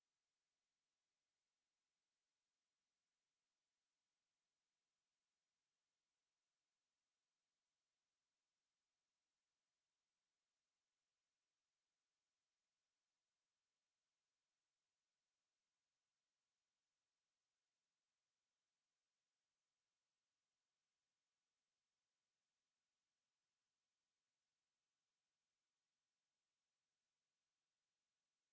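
A steady, high-pitched pure sine tone at 10218 Hz, held unchanging: a speaker test and speaker-cleaning tone.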